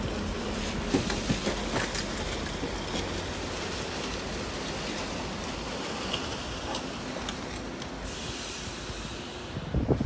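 Heavy diesel earthmoving machinery running, with a low engine hum and scattered metallic knocks and clanks. A rushing hiss comes in near the end.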